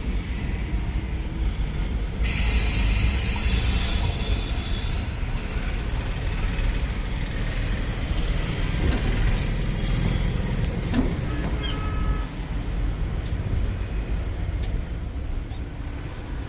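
A diesel engine running steadily with a low rumble. A hiss joins about two seconds in for a few seconds, and there are a few sharp clicks.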